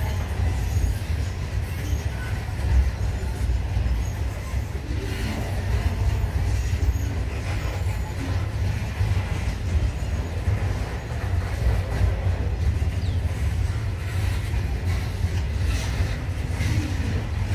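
Freight train's hopper wagons rolling past, a continuous low rumble of steel wheels on rail.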